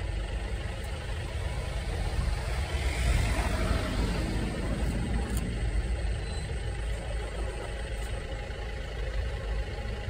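A vehicle engine idling steadily with a low rumble, with a brief swell in the noise around three to four seconds in.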